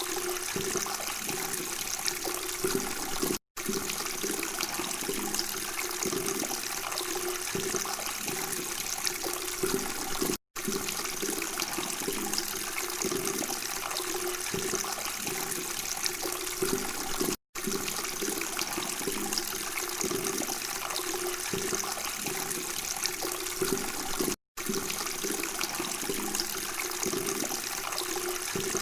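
Running water babbling and trickling steadily. It cuts out to silence for an instant four times, about every seven seconds.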